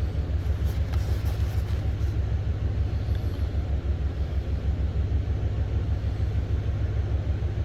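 An engine idling steadily with a low, even pulse.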